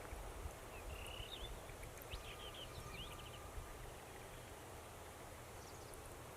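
A small songbird singing a short phrase of quick high notes, a brief trill about a second in, then a run of rapid down-slurred notes around two to three seconds in. Beneath it is a faint low rumble of outdoor background noise.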